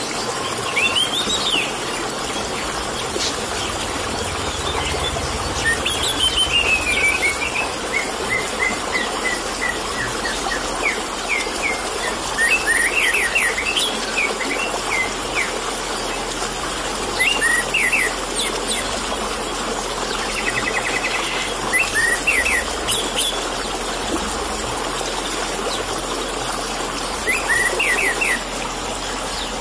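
Orange-headed thrush singing short phrases of quick chirps and whistles every few seconds, one of them a long falling run of notes, over a steady trickle of running water.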